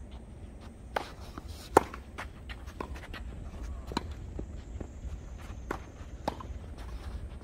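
Tennis rally in a doubles point: sharp racket-on-ball hits and ball bounces at uneven intervals, the loudest about two seconds in, with players' footsteps and shoe scuffs on the court between them.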